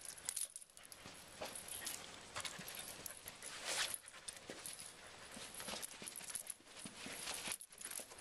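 Samoyed puppy panting and moving about close by, with irregular rustles and scattered light taps.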